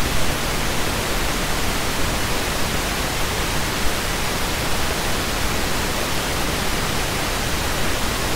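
Steady, even hiss of recording noise with no other distinct sound.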